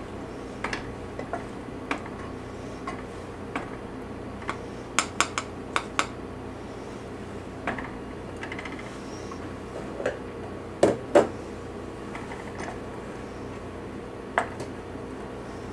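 A spoon stirring a thick mixture in a stainless steel saucepan, clinking and scraping against the side of the pot at irregular moments. There is a quick run of clinks about five seconds in, and the loudest pair comes about eleven seconds in.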